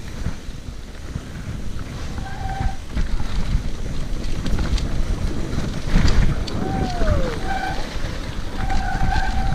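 Mountain bike riding down a bike park trail: wind buffets the camera microphone over the rumble of tyres on dirt and rock, with knocks from bumps about 3 and 6 seconds in. A few short squealing tones come and go in the second half, one falling in pitch.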